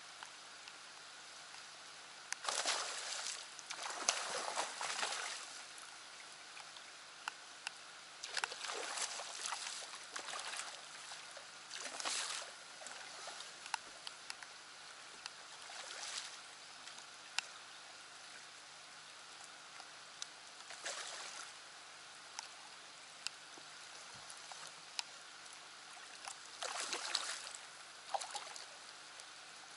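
Steady rain on the boat and lake, with scattered sharp ticks of raindrops hitting the camera, and several short surges of splashing noise. The longest splashing surge comes near the end, as a hooked bass thrashes at the surface beside the landing net.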